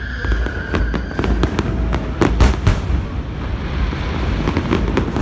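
Fireworks display: a dense run of crackling bangs from bursting shells, loudest in a cluster around the middle, over a continuous low rumble. A high steady whistle fades away in the first second.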